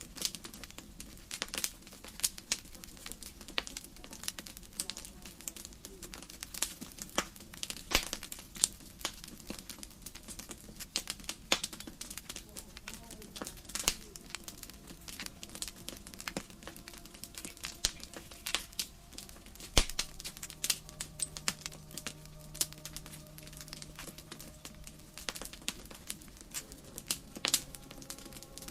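Wood fire in a fireplace crackling, with irregular sharp pops and snaps.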